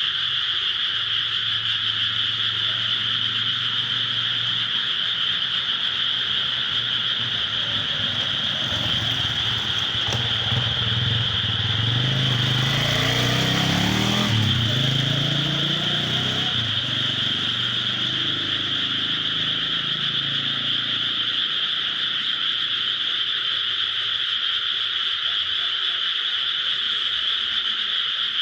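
A dense chorus of rice-paddy frogs calling together, a steady, unbroken high-pitched din. Partway through, a vehicle passes, its low rumble rising and falling over several seconds.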